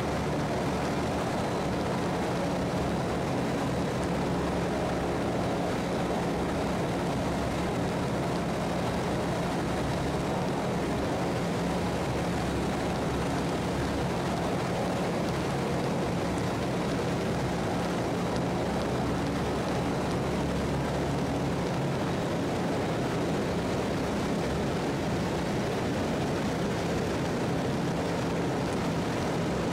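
Just Aircraft SuperSTOL XL's propeller engine running steadily in flight, heard from inside the open-framed cockpit as an even drone with a low hum.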